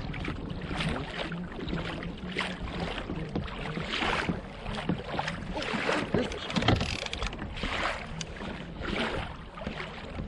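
Water sloshing and splashing around a kayak on open water, in repeated washes less than a second apart.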